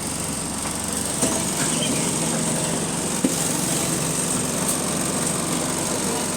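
Bus engine running steadily, heard from inside the bus, with a steady high whine over it and a sharp knock about a second in and another about three seconds in.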